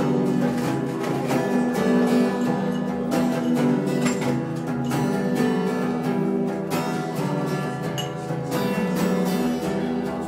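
Solo acoustic guitar strummed steadily in a regular rhythm, with no singing.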